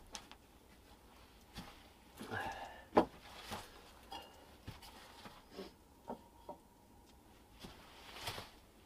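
A few light knocks and clinks of a steel mug against a wooden sill as it is handled and picked up, with a sharp knock about three seconds in and soft rustling.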